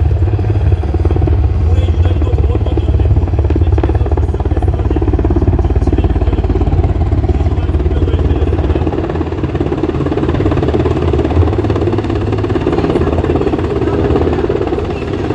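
Military helicopter's rotor and engines running loudly and steadily, a dense rapid chopping over a deep throb. The deep throb eases about nine seconds in while a mid-pitched drone grows stronger.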